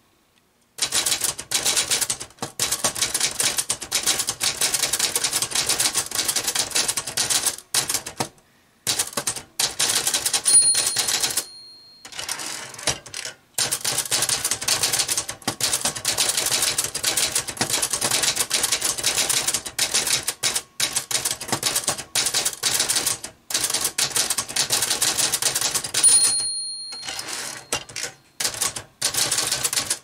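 Rapid typing on a plastic-bodied We R Memory Keepers Typecast manual typewriter: a dense run of key and typebar clacks with short pauses. Twice a ringing ding sounds, the margin bell at the end of a line, each followed by a short break before typing resumes.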